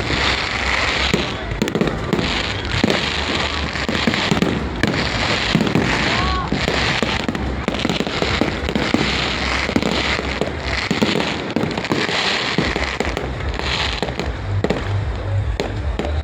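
Fireworks display: a dense, unbroken run of bangs and crackling bursts going off one after another.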